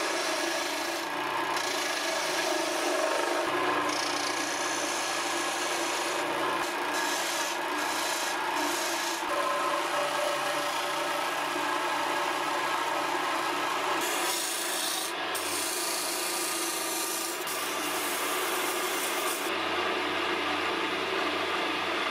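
Turning tool cutting a maple handle spinning on a small lathe: a continuous rasping of shavings coming off the wood, the high hiss switching on and off as the tool is pressed in and eased off.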